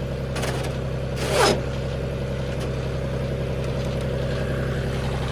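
Vehicle engine running steadily at a low, even speed, with two short scraping, hissing noises in the first second and a half, the second falling in pitch.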